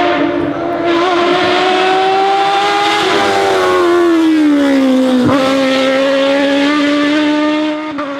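Hill-climb race car engine running at high revs under load, its pitch rising slightly, then falling over about two seconds from around three seconds in. A brief sharp click comes about five seconds in, after which the engine note holds steady.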